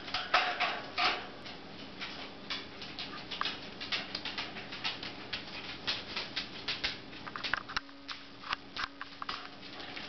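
Rainbow lorikeet working against a toy in its cage: a fast, irregular run of small clicks, taps and scratches from its beak and feet, as it mounts the toy in sexual display.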